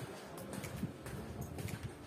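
Footsteps on a polished marble floor, a few light clicks about half a second apart, over faint background music.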